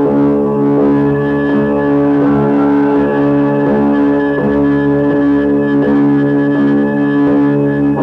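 Instrumental music accompanying a stage dance: held low tones with a repeating figure of notes restated about every three-quarters of a second.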